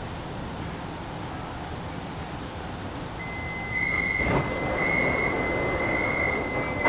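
Kaohsiung MRT metro train coming to a stop, its running rumble steady, then the door warning beeping about once a second as the passenger doors unlock with a clunk and slide open.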